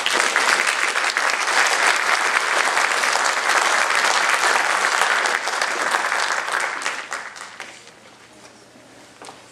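An audience applauding: dense clapping that dies away about two seconds before the end.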